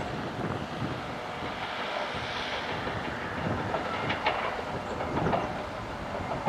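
2TE116 twin-section diesel locomotive approaching slowly: a steady engine rumble, with a few sharp wheel clicks over the rail joints and points.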